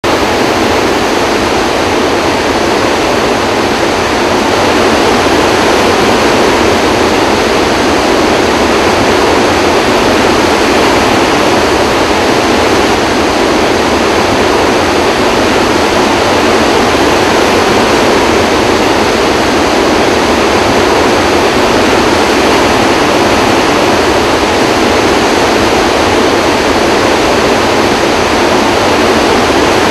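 Floodwater discharging through the eight open spillway gates of Kaw Dam: a steady, loud rush of churning water.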